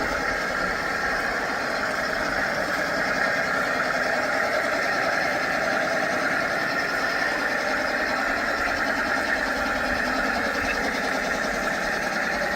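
Three large-scale model diesel locomotives, two 1:29 SD9s and a GP60, running together in a consist with a steady diesel engine sound and no change in pitch or level.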